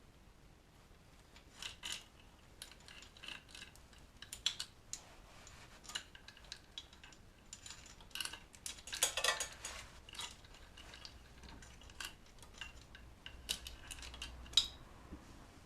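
Irregular metallic clinks and clicks of hand tools and small metal parts being handled during work on a motorcycle engine, with a denser run of clinking about nine seconds in.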